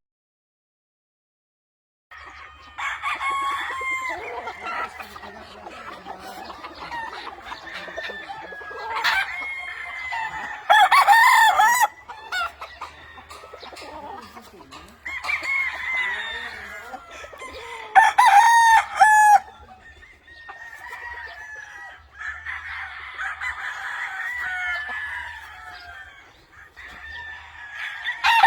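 Gamefowl roosters crowing again and again over steady clucking. The sound starts after about two seconds of silence, and the loudest crows come about a third and two-thirds of the way through.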